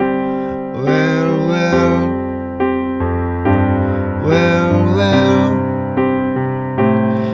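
Background song: piano or electric-piano accompaniment with a sung vocal line.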